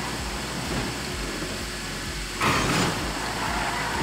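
Vehicle running on a steep downhill track with a steady low rumble, and a short loud hiss of noise about two and a half seconds in.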